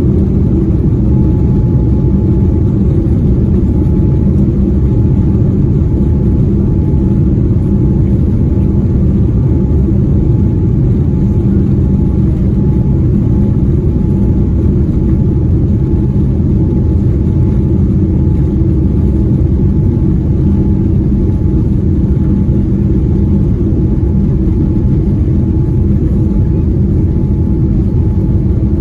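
Cabin noise inside a Boeing 787-9 taxiing on the ground: a loud, steady low rumble and hum from the engines at low thrust and the airflow, with a faint steady whine on top and no rise in power.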